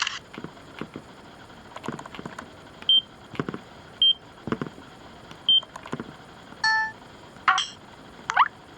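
Casio EX-ZS5 digital camera's built-in operation and effect sounds: short single electronic beeps spread a second or so apart, then a few brief multi-tone chimes near the end, one with a quick rising sweep.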